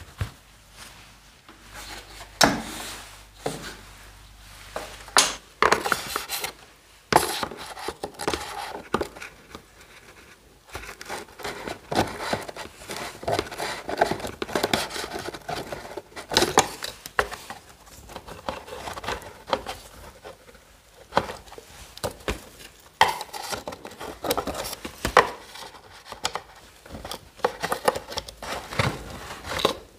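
Hands handling small metal and plastic scooter parts around the carburettor and its fittings: irregular clicks, taps and light rubbing.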